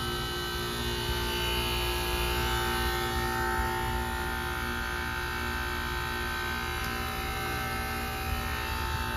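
Carrier WeatherMate 38YCC heat pump outdoor unit running in its defrost cycle: a steady compressor hum with several held tones over a low rumble.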